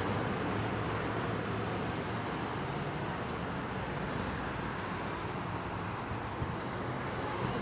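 Highway traffic noise: a steady rush of cars and a truck passing on the road.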